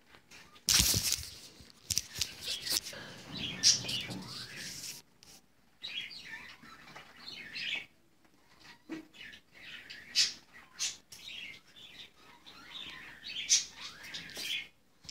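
A white-faced capuchin monkey scrambling and leaping about a wire-mesh enclosure and grabbing the phone: irregular knocks, bumps and rattles, the loudest just under a second in, mixed with short, high chirps.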